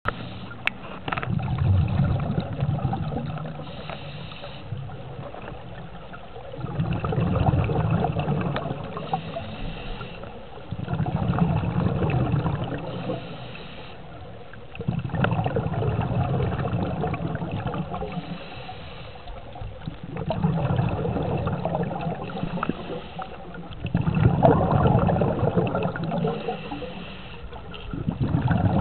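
A scuba diver's regulator breathing, heard underwater: exhaled breath bubbles out in loud bursts about every four to five seconds, with a short hiss of inhalation between them.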